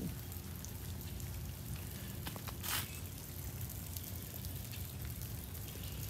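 Light cold drizzle pattering on ice-coated patio furniture and frozen ground: an even, faint hiss with scattered small ticks, and one brief louder hiss a little before the middle.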